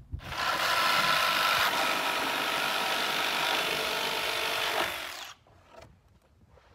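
A cordless drill running under load into the wooden top plate of a stud wall for about five seconds, then stopping.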